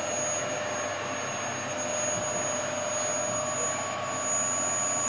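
Vacuum cleaner running steadily, a constant rushing noise with a thin high whine.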